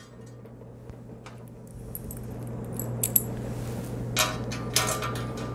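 Small steel bolts and washers clinking and jingling as they are handled and fitted through holes in a pellet grill's metal lid, with scattered light metal ticks and a few brief rings. A faint steady hum lies underneath.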